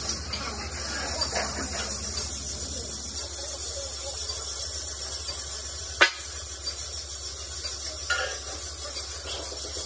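Steady hiss and crackle of a torch cutting into a steel excavator bucket, over a constant low hum, with one sharp metallic knock about six seconds in.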